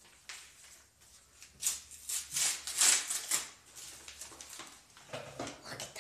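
Curvahedra paper puzzle pieces rustling and crackling as they are handled and hooked together, with a run of louder crackly bursts about two to three seconds in.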